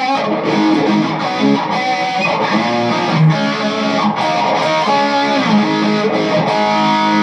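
2015 Gibson Les Paul Junior with a Rio Grande Bluesdawg P-90 pickup, played through a Peavey Vypyr modeling amp: a run of single-note licks, settling on a held chord near the end.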